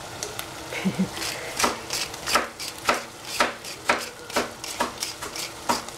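Wooden spatula stirring capsicum and shrimp in a stainless steel saucepan, knocking and scraping against the pan about twice a second from about a second and a half in.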